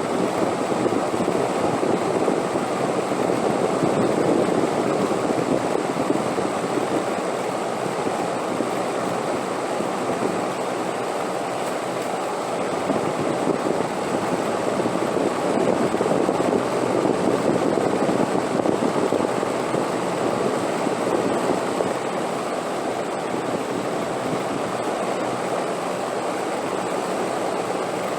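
Wind blowing steadily in a deep rush, swelling in gusts twice and easing a little near the end.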